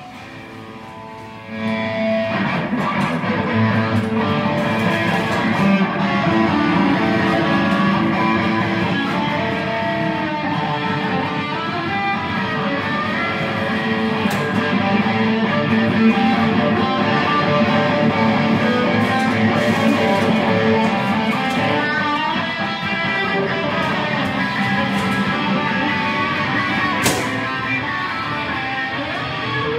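Electric guitar played through a small combo amplifier: after a short quiet, a continuous stream of notes and chords starts about a second and a half in and runs on steadily.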